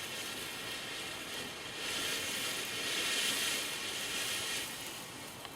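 A small firework burning with a steady spitting hiss, swelling about two seconds in and dying down near the end.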